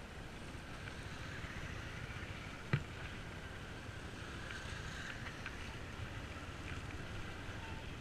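Bajaj Pulsar motorcycle ridden slowly over a wet, rutted mud track: a steady rumble of engine and tyres in mud, with a few light ticks and one sharp knock nearly three seconds in.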